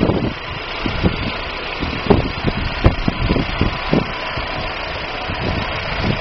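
Daewoo Nubira's 2.0 L DOHC four-cylinder engine running at idle under a steady fan-like noise, with irregular short low knocks. The engine is being checked for a misfire that the owner suspects, without being sure, comes from weak spark at the DIS ignition coil.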